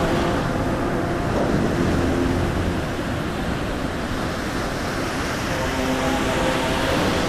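Ambient soundtrack: a steady rushing wash like surf or wind, with soft held tones that fade in and out, present early on and again near the end.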